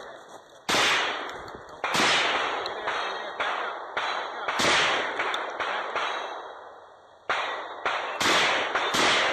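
Gunshots from a shotgun or pistol fired in a rapid string on a 2-gun stage: about ten sharp reports at an uneven pace, each ringing out with a fading echo. There is a gap of about a second between six and seven seconds in.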